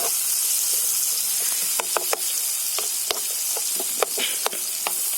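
Onions frying in hot fat in a pan, with a steady sizzle and a few sharp clicks in the second half.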